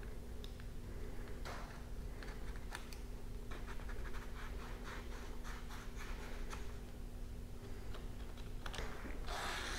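Hex key working a brake-lever clamp bolt on an e-bike handlebar: a string of small clicks and scratches, with a quick run of clicks midway and a louder scrape near the end.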